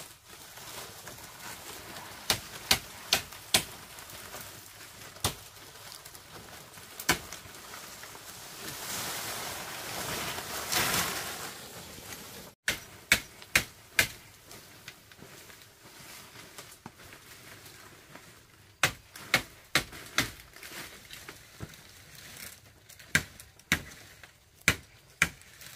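Sharp knocks of hand-tool strikes in quick groups of three or four, about three a second, with pauses of a few seconds between groups. A rush of rustling noise swells up and falls away near the middle.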